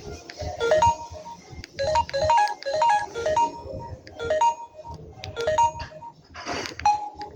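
Samsung GT-C3053 mobile phone playing a ringtone through its small loudspeaker: a bright melody of short, clear notes in repeating phrases. A brief noisy burst breaks in about six and a half seconds in before the tune carries on.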